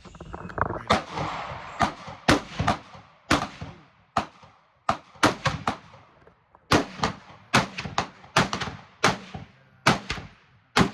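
Gunfire: a rapid, irregular string of single shots, roughly two a second, each a sharp crack with a short trailing echo.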